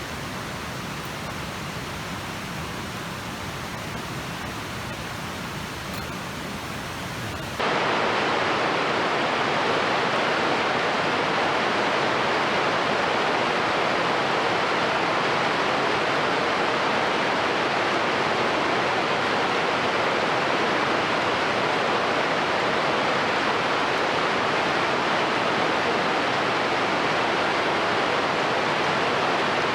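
Steady rush of glacial meltwater: a softer, duller hiss at first, then a sudden change about seven and a half seconds in to a louder, brighter, unbroken rush.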